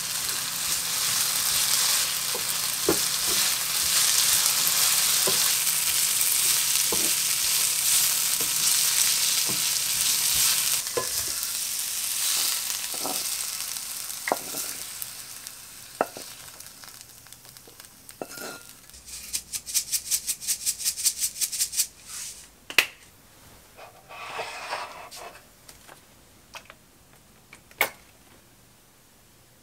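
Julienned potato, carrot and green chili sizzling in a nonstick frying pan as a spatula stirs and taps through them; the sizzle dies away before halfway. Then a quick run of rattling clicks and a few separate sharp clacks of pan and utensils.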